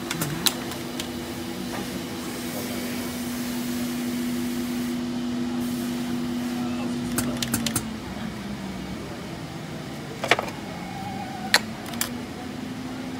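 Lens polishing machine running with a steady motor hum; a little past halfway the hum drops in pitch, then climbs back near the end. Several sharp clicks and knocks of parts and controls being handled.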